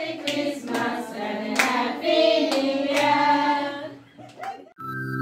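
A group of children and women singing a Kannada Christmas carol together, clapping their hands along. Near the end the singing stops and flute music begins.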